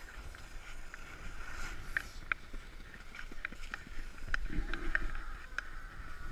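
A plastic saucer sled being dragged over snow, its hull hissing across the surface, with footsteps crunching in the snow at an uneven pace. A short low rumble comes about four and a half seconds in.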